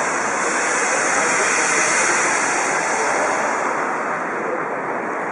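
Steam locomotive 52 8080-5 blowing steam from its open cylinder drain cocks: a steady, rushing hiss. The hiss is strongest about two seconds in and eases off near the end.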